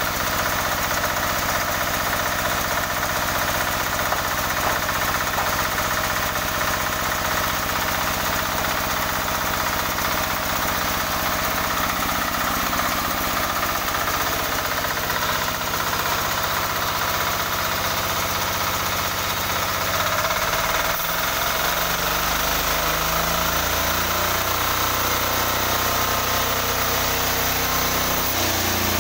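18 hp diesel engine of a sawmill running steadily during a test run, with a constant low knocking drone. Its low note shifts a little about twenty seconds in.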